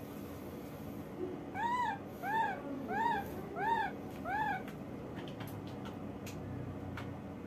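Baby macaque giving a run of five short coo calls, each rising then falling in pitch, about two-thirds of a second apart, in the first half.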